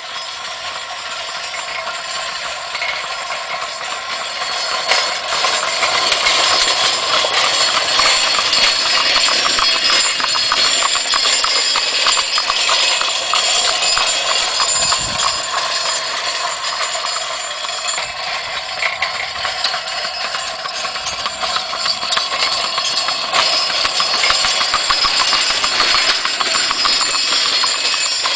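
Horse-drawn farm implement clattering and rattling steadily as the team pulls it, a dense metallic racket of fast ticks that grows louder a few seconds in.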